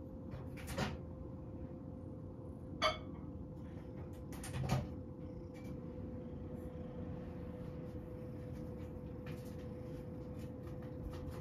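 Three short, sharp knocks and clatters, about one, three and five seconds in, from someone handling things in a kitchen, over a steady low hum.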